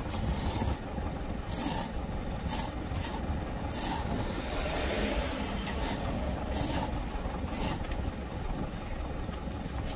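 Noodles being slurped from a cup: several short, hissing slurps over the low, steady rumble of an idling truck engine.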